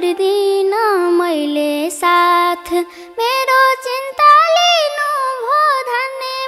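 A young girl singing a Nepali folk dohori melody, with long held notes that slide and turn between pitches.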